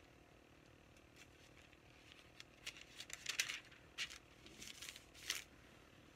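Faint rustling and crinkling of paper pages being handled and turned, in a string of short rustles, the loudest about five seconds in.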